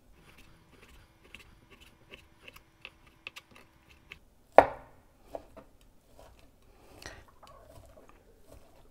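Knife cutting cooked chicken breast into small pieces: a run of light taps and clicks, with one loud knock about halfway through.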